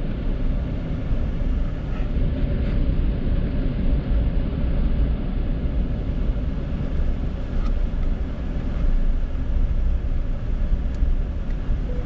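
Steady low rumble of engine and road noise, heard from inside the cab of a vehicle driving slowly.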